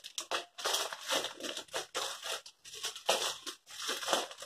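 Plastic courier mailer bag being slit with a utility knife and pulled open: irregular crinkling and tearing of the plastic in quick strokes.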